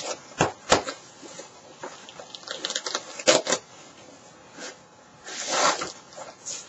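Foam armor piece and velcro strips being handled while a thigh piece is fitted over an undersuit: rustling with a few sharp clicks and knocks, and a short rasping scrape about five seconds in.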